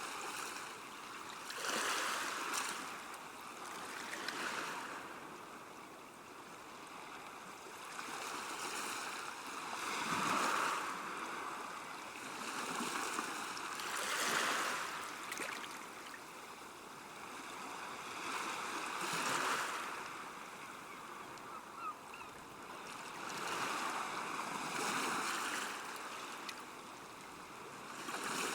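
Small, calm waves washing onto a shore, each wash swelling and ebbing every few seconds.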